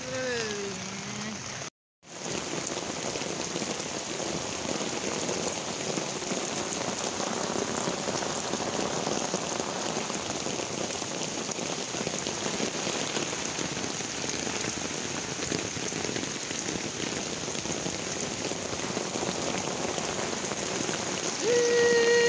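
Heavy downpour: a steady hiss of rain striking a flooded footpath and standing water. The sound cuts out briefly about two seconds in.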